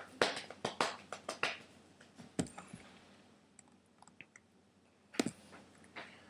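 A quick run of clicks and taps on a laptop close to its built-in microphone, then a few scattered single taps.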